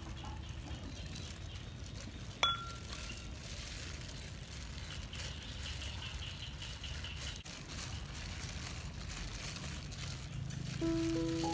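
Hand-mixing grated taro and starch in a stainless-steel bowl, with a steady low outdoor rumble and one sharp metallic clink against the bowl about two seconds in that rings briefly. A faint high trill comes in the middle, and background music begins near the end.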